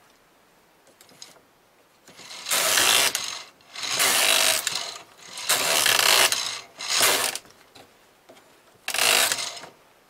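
Carriage of a Brother KH801 punch-card knitting machine pushed back and forth across the needle bed, knitting rows: five separate passes of about a second or less each. The carriage now knits freely, its sticking cured by cleaning and lubrication.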